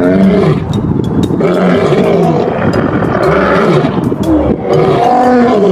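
Lion roaring sound effect: a loud, rough, continuous roar with rising and falling growls.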